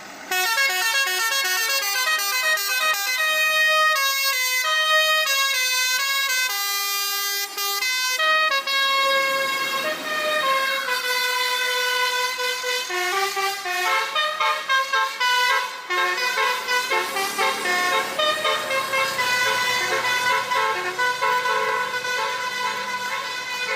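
Basuri telolet musical air horn on a bus playing a melody. It cuts in suddenly, then steps quickly from note to note, with several horn tones often sounding together, and keeps playing without a break.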